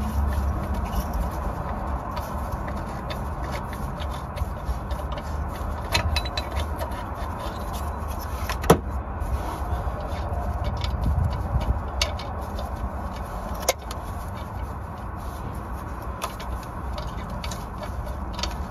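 An exhaust oxygen sensor being unscrewed by hand from its threaded boss after an impact tool broke it loose: a handful of sharp metallic clicks and taps from the sensor and its cable, the loudest about nine seconds in, over a steady low rumble.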